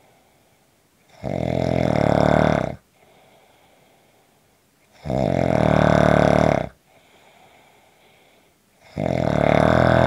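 A person snoring: three loud snores, each about a second and a half long and about four seconds apart, with faint breathing between them.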